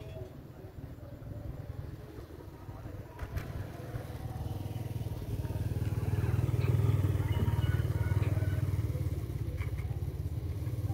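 Motorcycle engine running steadily while riding, growing louder about four seconds in.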